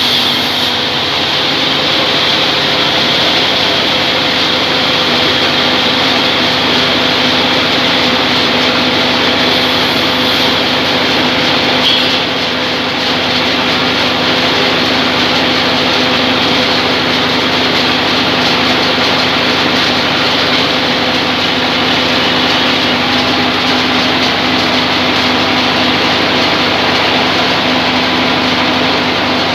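Sawmill band saw running steadily, a loud continuous mechanical drone with a steady hum and hiss that hardly changes.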